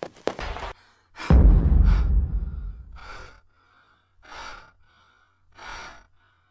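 A woman breathing hard from exertion: three heavy breaths about a second and a half apart. Before them, about a second in, a loud deep hit with a long fading tail.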